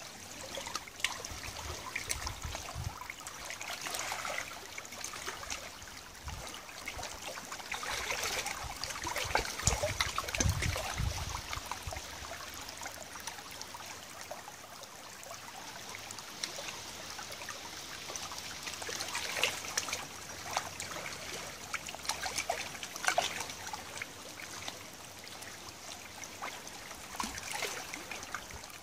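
Shallow tidal river water trickling and lapping over stones at the water's edge: a steady wash of small splashes and drips. A couple of low rumbles come about two and ten seconds in.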